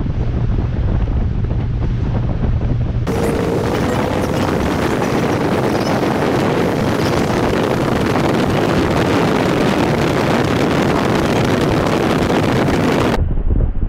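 Wind buffeting the microphone on a motorboat under way, with a steady rush of air and water. About three seconds in the sound turns abruptly into a brighter, hissier rush, and near the end it drops back to a duller rumble.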